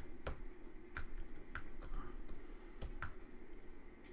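Computer keyboard keys being typed, a handful of separate keystroke clicks at an uneven pace as a terminal command is entered.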